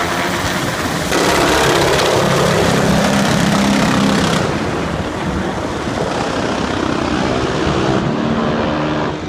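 Black Hawk-type military helicopter flying low overhead, a steady roar of rotor and turbine. It grows louder about a second in as it passes close, then its high-pitched part drops away about four seconds in as it banks off.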